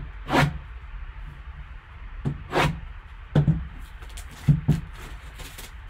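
Plastic shrink-wrap on a sealed cardboard card box being slit with a knife and pulled off, crinkling in about six separate short rustles.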